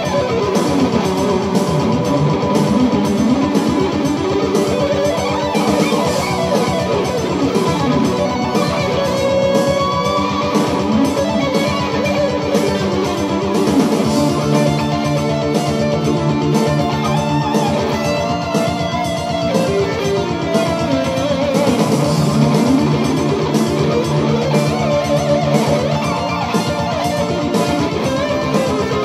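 Distorted electric guitar played through a Hughes & Kettner tube amp: fast lead lines and runs in a neo-classical rock style, with continuous quickly changing notes.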